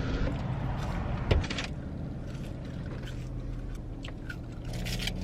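Car running, heard from inside the cabin as a steady low rumble, with a sharp knock about a second in and a few small clicks and rustles.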